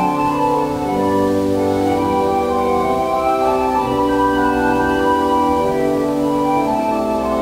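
Organ playing slow, sustained chords.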